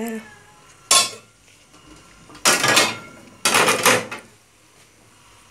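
Stainless steel pots and lids being handled on a table: a sharp metal clank with a short ring about a second in, then two louder metal clatters of about half a second each.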